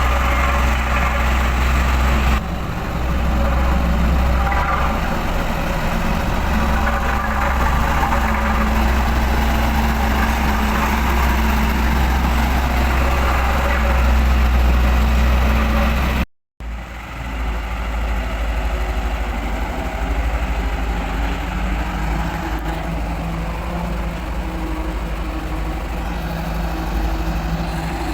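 Dynapac vibratory road roller working on soil: its diesel engine runs steadily over a strong low hum from the vibrating drum. The sound cuts out for a moment about halfway through, then carries on.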